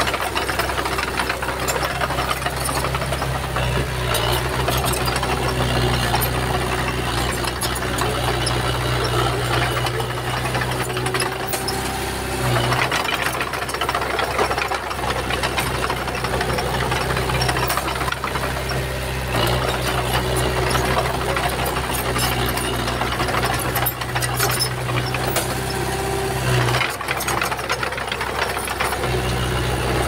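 Komatsu bulldozer's diesel engine running steadily under load, with frequent clanks and rattles. The engine note dips briefly about twelve seconds in and again near the end.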